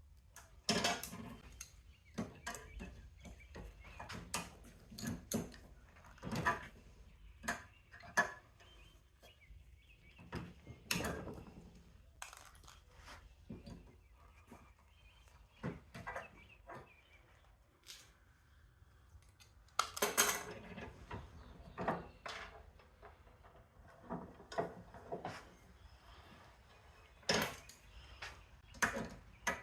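Irregular metallic clicks and clatters of channel-lock pliers and a bench vise working on electrical plugs, as the brass prongs are twisted and snapped out of the hard plastic and small metal pieces clink together.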